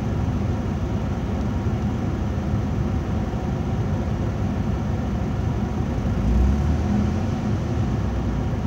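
Car engine idling roughly, heard from inside the cabin, during auto-calibration of a newly fitted CNG injection system. About six seconds in a deeper rumble swells as the revs rise from around 700 to 1,100 rpm.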